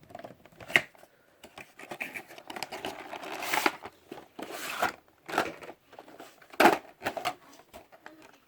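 Toy hauler's cardboard and plastic packaging being torn open by hand: irregular tearing, scraping and crinkling, with a sharp snap about a second in and a louder one about two-thirds of the way through.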